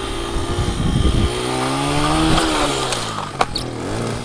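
Small dirt bike engine revving up and dropping back to idle as the bike goes down in a low-speed fall, with a couple of sharp knocks about three and a half seconds in. The engine keeps running because the rider pulled in the clutch.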